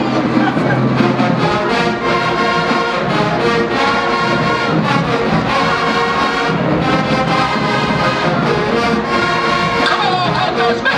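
College marching band playing: a brass section holding full sustained chords, with drums keeping a steady beat underneath.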